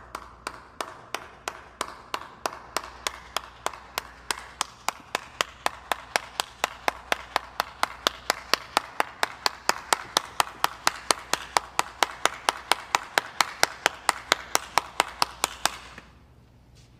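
One person clapping a slow clap that gradually speeds up from about two or three claps a second to about four and grows louder, then stops about a second before the end.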